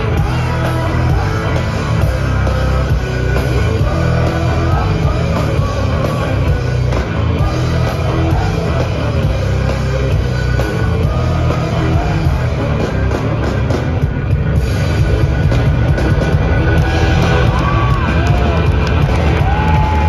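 Live rock band playing loud, with distorted electric guitar, drum kit and heavy bass, as heard from the audience.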